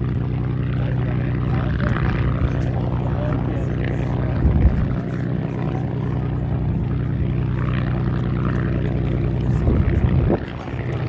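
P-51D Mustang's Packard Merlin V12 engine and propeller running at a steady, even pitch.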